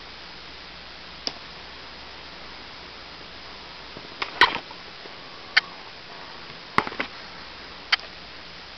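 Steady hiss with seven sharp clicks spread through it. The loudest click comes about four and a half seconds in, and several come in close pairs.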